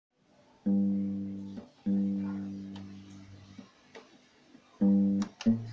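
Acoustic guitar strummed: two chords about a second apart, each left to ring and fade. After a pause comes another chord, a short clipped stroke and a low single note near the end.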